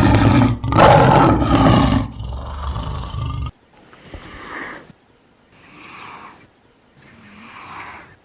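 Lion roaring: one loud roar of about two seconds that trails into a lower rumble, followed by three shorter, fainter calls each a second or so apart.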